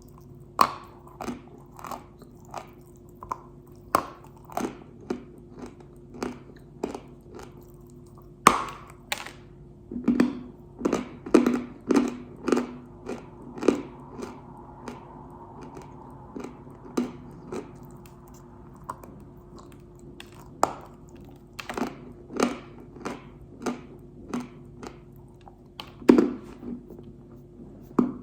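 Close chewing and crunching of pink Uzbek edible clay: a steady run of sharp, crisp crunches, about one or two a second, thinning out for a few seconds past the middle, with a loud crunch about eight seconds in and another near the end. A faint steady hum sits underneath.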